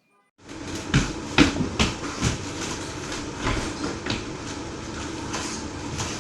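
A series of irregular knocks and clatters over a steady rumbling noise, starting about half a second in after a moment of silence.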